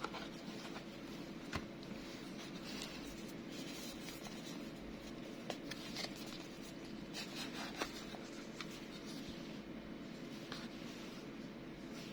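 Faint handling sounds as a Zippo lighter is turned over in the hands: scattered small clicks and light rustling over a steady low hum.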